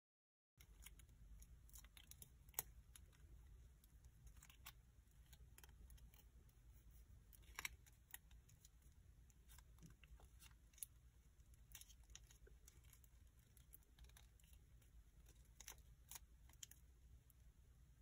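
Faint crinkling and scattered soft clicks of a sheet of origami paper being folded and creased by hand, a few sharper crackles among them, over a low steady hum.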